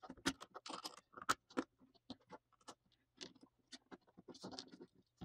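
Small metal motor parts being handled and fitted together, a brushless motor's rotor slid into its can and a pinion gear pushed onto the shaft, giving faint scattered clicks and scrapes. The footage is played at four times speed, so the handling sounds come quick and close together.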